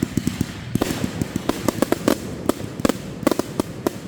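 Fireworks going off in quick, irregular succession: many sharp cracks and pops, several a second, over a steady crackle.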